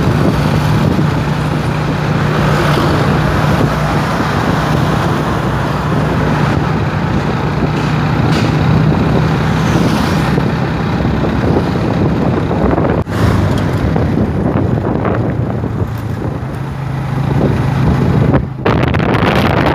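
Motorcycle engine running steadily at cruising speed, with wind rushing over the microphone; the engine note drops a little lower in the last few seconds.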